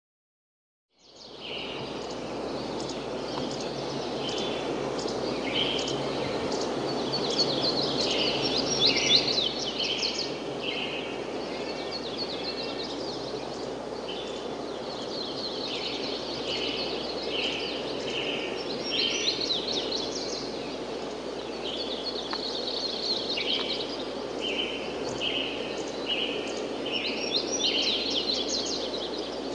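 Steady outdoor wind noise with small songbirds chirping and trilling over it again and again, starting about a second in.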